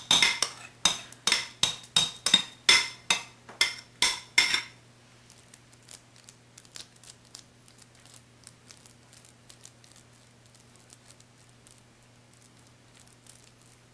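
Metal spoon clinking against a glass bowl about three times a second, ringing sharply, as ground-meat mixture is scraped and knocked out of it. A little under five seconds in the clinks stop, leaving only faint spoon scrapes and clicks as the mixture is spread flat in a glass dish.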